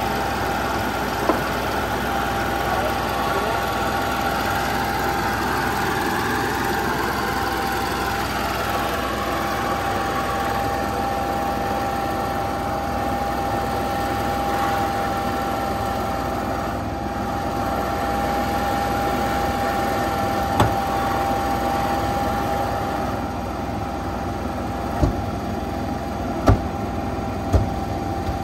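Cummins Onan 5500 RV generator running at a steady speed, its newly replaced fuel pump fitted to cure the fault code 36 shutdowns. A few sharp knocks sound over it, one about a second in and three near the end.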